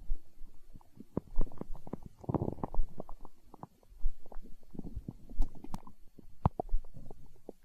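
Hungry human stomach growling: a run of gurgles and small pops, with a louder, longer gurgle about two seconds in. A soft low thump recurs about every second and a quarter underneath.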